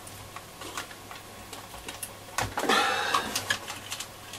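Small clicks, taps and handling noises of fingers and pliers pulling lead connectors off a transistor radio's circuit board, with a louder scraping rustle about halfway through.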